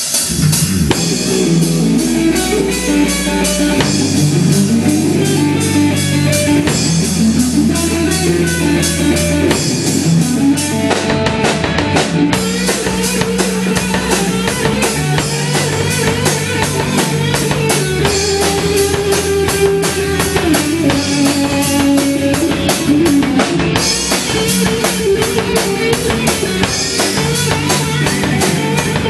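Rock band playing live: electric guitars over a drum kit with a steady beat, instrumental with no singing.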